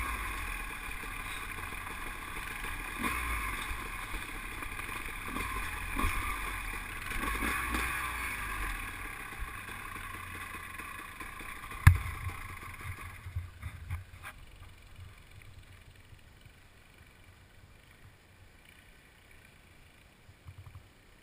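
ATV engine running as the quad bumps over a rocky trail, with one sharp, loud knock about twelve seconds in. Soon after, the engine sound drops away, leaving it fairly quiet with a few small clicks.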